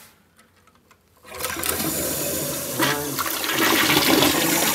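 Toilet doing its full 'number two' flush through a newly installed dual-flush valve: after about a second of quiet, water rushes into the bowl and swirls down, growing louder near the end.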